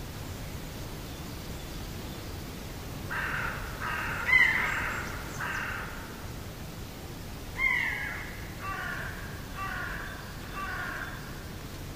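A crow cawing: about eight calls in two runs, starting about three seconds in, with the loudest calls a little past four and near eight seconds.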